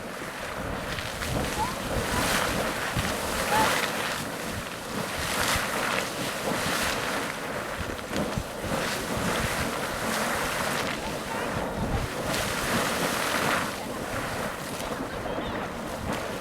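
Sawmill Geyser erupting: water splashing and spraying in overlapping surges every second or two, with wind on the microphone.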